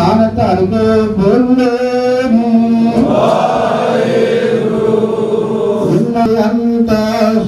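Sikh congregation chanting together in unison, many voices on one line, with a long held note in the middle.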